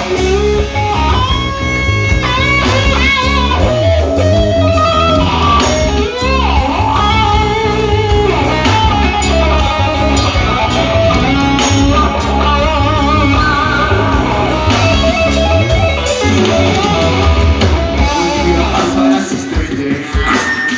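Live rock band with an electric guitar playing a lead line of bent, wavering notes over bass and drums, with no singing; the bass drops away near the end.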